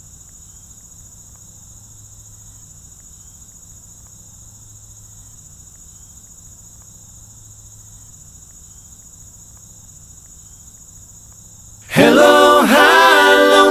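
A steady, high-pitched chorus of insects trilling without a break. About a second and a half before the end an acoustic country band comes in loudly, playing and singing, and drowns the insects out.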